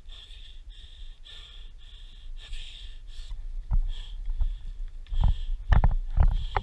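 Rhythmic breathing close to the microphone, short hissy breaths about every half second. From about halfway, a run of knocks and low thumps from movement and gear starts and grows louder toward the end.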